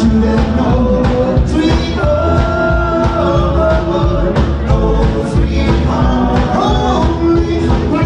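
Rockabilly band playing live with a steady beat, a heavy bass low end and long held melody notes.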